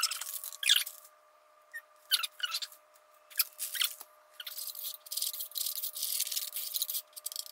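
Spoon scraping and tapping in a mixing bowl of dry baking ingredients (flour, cocoa powder, sugar): a run of short scratchy squeaks, a brief pause, then a steadier scratchy rustle over the last few seconds.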